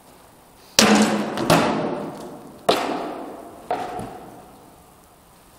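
Four hard blows of swords striking round wooden shields in sword-and-shield sparring, the first two loudest, each sharp crack trailing off in a long echo in the large hall.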